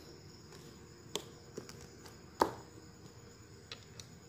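A few light clicks and knocks of the multimeter's plastic case being handled, the loudest a single sharp knock about halfway through.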